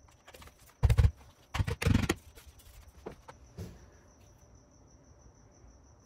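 Plastic cable duct being pressed into place by hand on a door frame: small clicks and taps, two loud knocks about one and two seconds in, and a smaller knock a little later.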